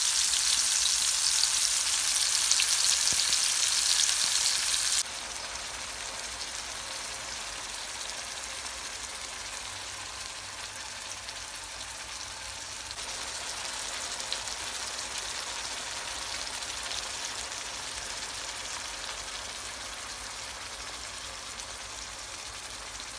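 Masala-coated netholi (small anchovies) frying in hot oil in a pan, a steady sizzle. The sizzle drops abruptly in loudness about five seconds in and swells slightly again around thirteen seconds.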